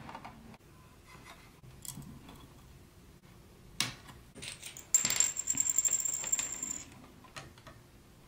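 A bare wire scraping and clicking against the metal battery springs in a toy claw machine's plastic battery compartment: scattered light clicks, a sharp click about four seconds in, then about two seconds of dense metallic rattling with a thin high tone running through it.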